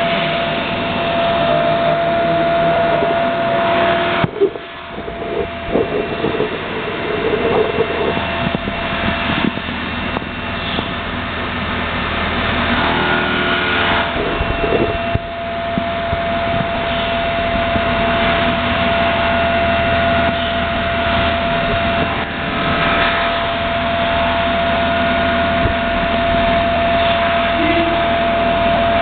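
CNC milling machine running, a steady machine noise with a constant high whine. The noise cuts out sharply about four seconds in, then builds back up and runs on steadily.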